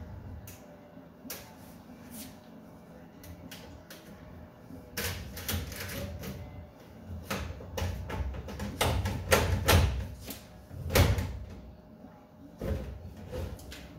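Sheet-steel toolbox drawer clanking and rattling as it is worked in and out on its slides. A few light clicks come first, then from about five seconds in a run of sharp metal knocks and clunks, the heaviest a few seconds before the end. The drawer is not sliding in properly on its makeshift hacksaw-blade clip.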